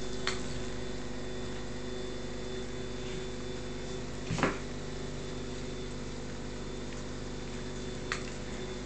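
A fox terrier snapping at bubbles: a few short snaps, the loudest about halfway through, over a steady low hum.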